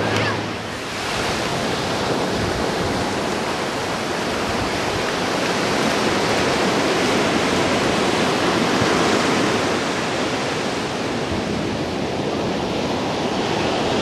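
Steady rushing of ocean surf breaking on a sandy beach, with wind on the microphone.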